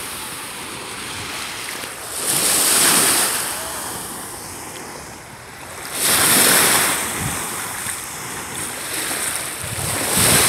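Small Lake Michigan waves washing in at the shoreline, the rush of surf swelling three times, about four seconds apart.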